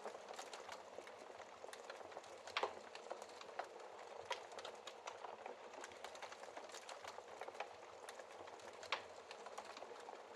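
Faint wood fire crackling: a steady soft hiss of burning with frequent small snaps, and two louder pops, about two and a half seconds in and near nine seconds.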